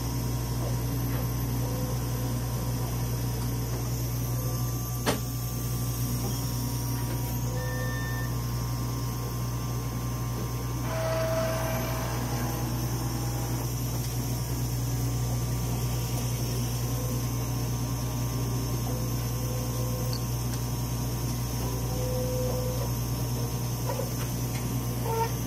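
Steady low electrical machine hum from running equipment, with one sharp click about five seconds in.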